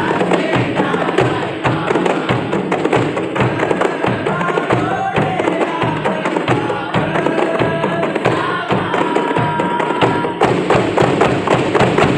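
Kompang ensemble: many hand-held frame drums struck in a fast, steady interlocking rhythm, with a large bass drum on a wheeled stand beating underneath. Voices sing along over the drumming.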